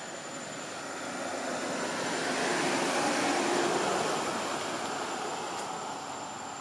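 A vehicle passing by: its engine noise swells to a peak about three seconds in, then fades away.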